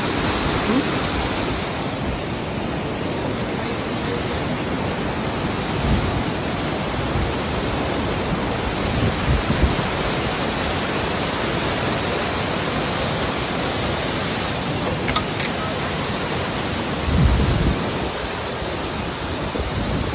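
Steady rush of a cascading mountain creek and waterfall, with a few low thumps, the loudest about three seconds before the end.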